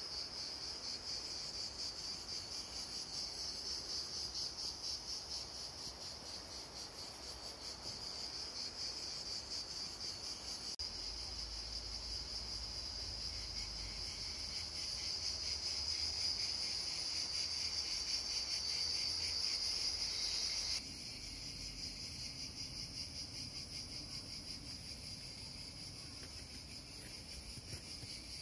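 A dense, high, rapidly pulsing chorus of summer insects, part of a recorded Mediterranean summer soundscape played back through the installation's equipment. The texture changes abruptly twice, about 11 and 21 seconds in.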